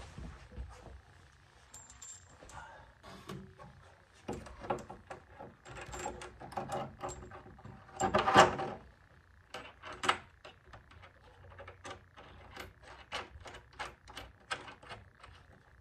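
Scattered small clicks, taps and rattles of brass fuel-line fittings and hose being handled and pushed up through holes in the underside of a Jeep's steel body, with a louder knock about eight seconds in and another about two seconds later.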